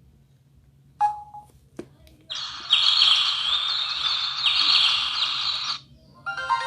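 A bird-chirping ringtone plays from a Samsung Gravity 2 (SGH-T469) phone's speaker: a recording of many quick bird chirps that starts abruptly and stops after about three and a half seconds. A short beep and a click come just before it.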